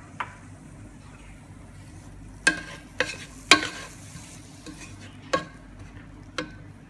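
Wooden spatula stirring finely chopped red onion in a nonstick pot, with a series of sharp taps as it knocks against the pan. The onion sizzles only faintly in oil that is not yet hot.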